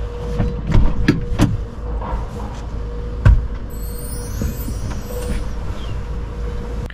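Knocks and clatter of things being moved and put away inside a small camper van's cabin, over a steady low hum. The sharpest knock comes about three seconds in.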